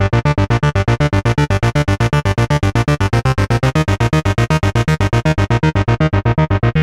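Moog Subsequent 37 analog monosynth playing a fast, repeating low bass pattern, about seven notes a second. The top end dulls slightly near the end.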